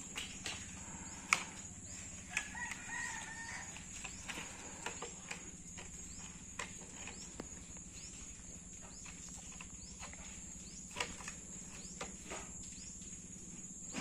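A rooster crows once, a couple of seconds in, while hard plastic toy vehicles are picked up and set down on a wooden plank with scattered sharp clicks and knocks. A steady high-pitched whine runs underneath.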